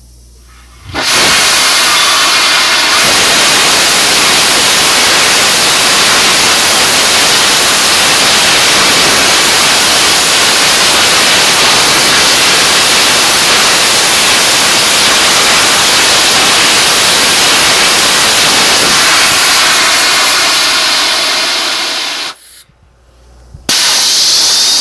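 Catalyst-bed rocket thruster on a test stand firing: a loud, steady rushing hiss of exhaust that starts about a second in and holds for about 21 seconds. It runs cleanly with a clear exhaust stream, a sign of the catalyst working properly. It cuts off abruptly and, after a short gap, starts again near the end.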